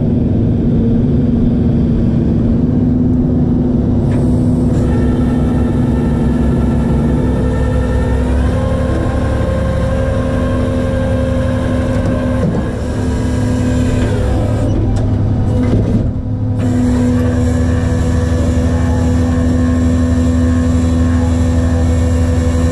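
Tow truck engine running steadily while driving, with road noise; the engine note rises about 8 seconds in, falls again around 12 to 13 seconds, and briefly drops about 16 seconds in.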